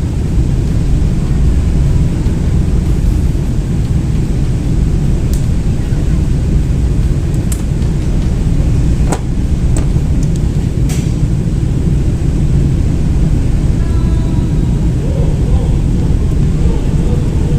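Steady low rumble with a few sharp clicks about halfway through.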